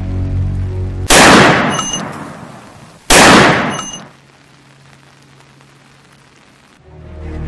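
Two pistol shots about two seconds apart, each loud and sudden with a long echoing tail, each followed by a faint metallic ping. Soundtrack music is heard before the first shot and returns near the end, with a low hum between.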